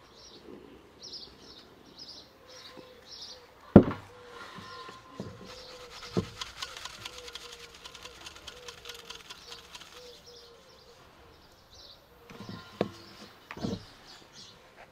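Flour being sifted through a round metal sieve into an enamel basin: a soft, fine-textured hiss for several seconds in the middle. Small birds chirp in quick repeats at the start, and there is a sharp knock about four seconds in and a few softer knocks near the end.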